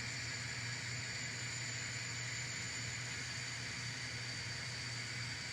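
Steady background hiss with a low hum and a faint, constant high-pitched whine; nothing starts or stops.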